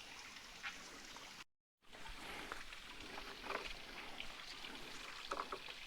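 Faint, steady trickle of water from a waterfall, with a few soft short sounds over it. The sound drops out completely for a moment about a second and a half in.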